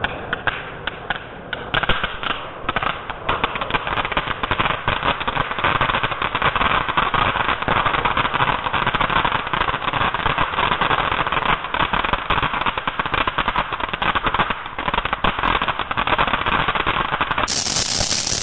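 Ground fountain firework spraying sparks: a steady hiss dense with crackling pops. Near the end a sharper, higher hiss joins in.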